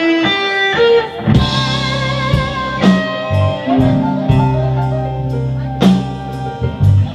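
Live electric blues band playing: a few single notes lead in, then drums and bass come in together about a second in and the full band settles into a steady blues groove with electric guitars and keyboard.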